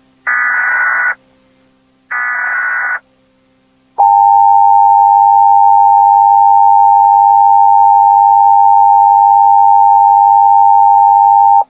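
Emergency Alert System tones: two short, roughly one-second bursts of SAME header data, then about four seconds in the steady EAS two-tone attention signal, held for nearly eight seconds before cutting off sharply.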